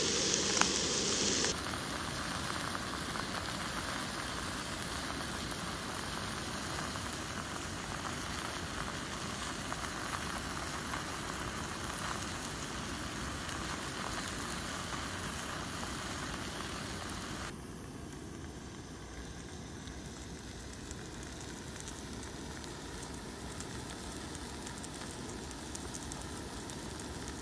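A thick steak sizzling in butter in a frying pan over a gas camping stove: a steady crackling hiss that drops a little in level twice, once about a second and a half in and again about two-thirds of the way through.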